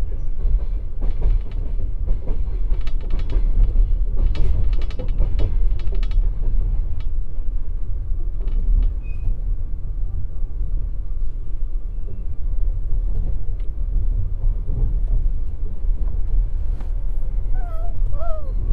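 Russian compartment passenger car rolling out of a station, heard from inside: steady low rumble of the car body and bogies, with irregular clicks as the wheels run over rail joints and switches, mostly in the first half. Near the end there is a brief wavering squeal.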